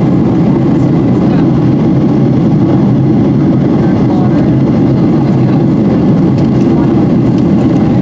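Steady cabin noise of a Boeing 737-800 in flight, heard from a seat behind the wing: a loud, even, low rush of the CFM56-7B engines and airflow.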